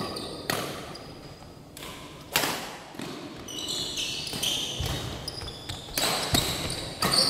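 A badminton rally: rackets hit a shuttlecock with several sharp smacks, spaced irregularly, one to a few seconds apart. Sneakers squeak briefly on the court floor in the middle and near the end.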